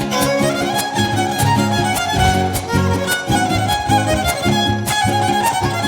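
Son huasteco trio playing an instrumental huapango passage: a violin carries the melody over rhythmic strummed chords from the jarana and huapanguera.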